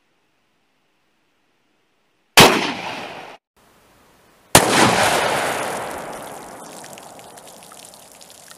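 Two shots from a Glock 20 10mm pistol firing a 140-grain Lehigh Xtreme Penetrator load, each a sudden loud crack, about two seconds apart. The first is cut off after about a second; the second rings out with a long echo that fades slowly.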